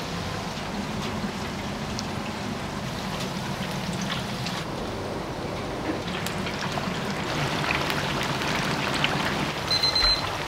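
Tempura frying in a deep fryer's hot oil: a steady sizzling hiss with a few light clicks.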